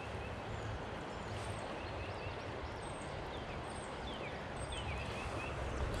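Steady rush of flowing creek water with a low rumble of wind on the microphone, and small birds chirping and giving short whistles over it.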